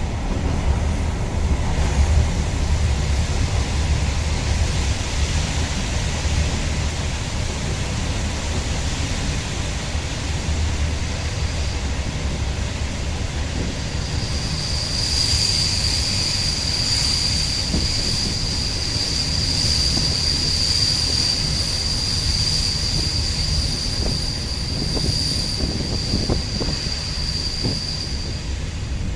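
InterCity train running on the rails with a steady low rumble. About halfway through, a high-pitched wheel squeal starts and holds steady until shortly before the end.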